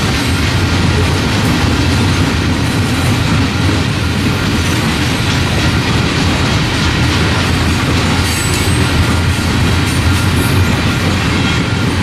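Freight train of open-top coal cars rolling past close by: a loud, steady noise of steel wheels on rail that holds without a break.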